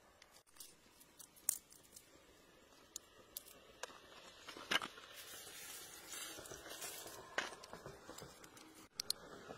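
Faint handling of small stones in a palm: a scattering of sharp clicks as the stones knock together, over soft rustling.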